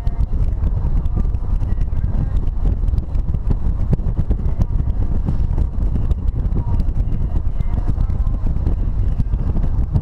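Wind buffeting the microphone as a BMW 320 convertible drives with its top down, a steady low rumble mixed with road noise from the car.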